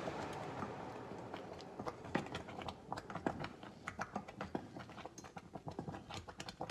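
Thick oatmeal cooking in a saucepan: irregular soft clicks, taps and pops, several a second, from the spoon in the pot and the thickened oats bubbling. A steady hum fades away over the first couple of seconds.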